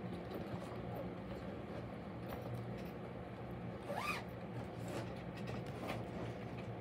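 Quiet handling of a cross-stitch project in a plastic bag, with small clicks and a short zip-like sweep about four seconds in, over a faint steady hum.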